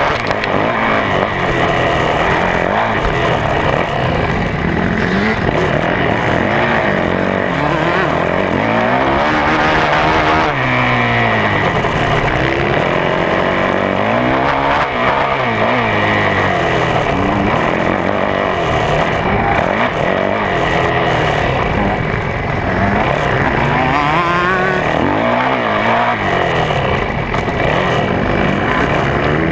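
A 2011 Yamaha YZ450F's single-cylinder four-stroke motocross engine heard from on board, revving up and falling back over and over as the rider accelerates, shifts and backs off.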